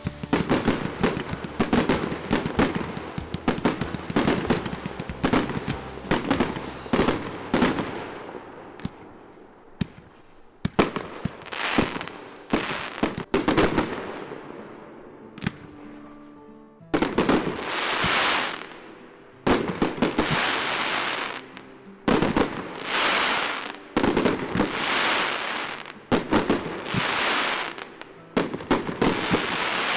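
Diwali fireworks: a fast string of firecracker bangs and crackles for the first several seconds. After a quieter stretch comes a run of loud hissing bursts, each lasting a second or two and starting suddenly.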